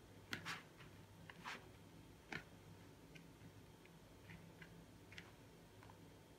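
A hand crumbling packaged cocoa cake into crumbs in a plastic bowl: faint, irregular soft crackles and rustles, over a low steady hum.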